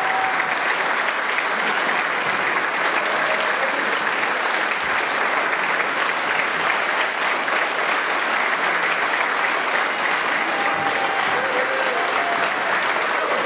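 Large audience applauding steadily: dense, continuous clapping.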